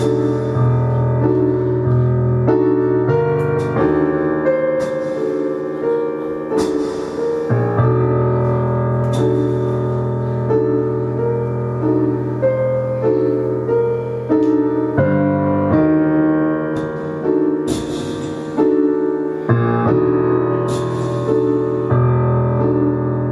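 Live keyboard music: slow sustained chords over a held low bass note, the harmony shifting every few seconds, with a few brief hissing swells mixed in.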